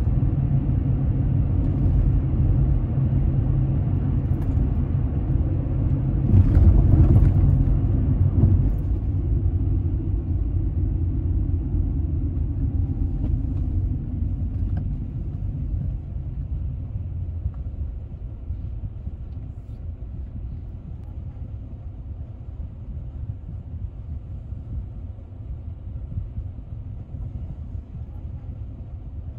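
Car on the move, heard from inside: a steady low rumble of road and engine noise, louder for a few seconds about six to nine seconds in. It then grows gradually quieter as the car slows down behind traffic at a red light.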